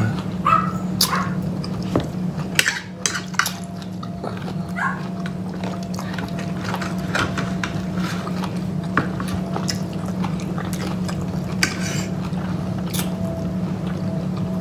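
Knives and forks clinking and scraping on dinner plates as two people cut and eat, many short clicks scattered through, over a steady low hum.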